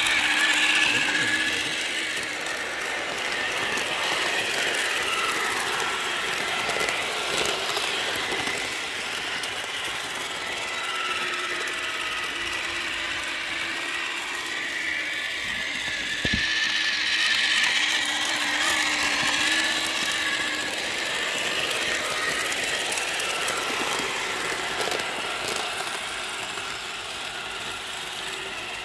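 Battery-powered O-gauge toy steam locomotive running on plastic-roadbed track, its motor and gear drive whirring steadily. It gets louder about a second in and again around two-thirds of the way through as it passes close by.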